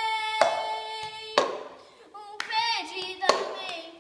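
A singer holds a long sung note, then sings a short phrase that bends in pitch, over sharp hand claps about once a second.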